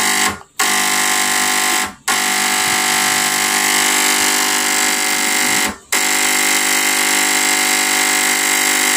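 Fog machine's solenoid fluid pump buzzing loudly and steadily as it is switched on to push fog fluid to the heater. The buzz cuts out briefly three times: about half a second in, about two seconds in and near six seconds.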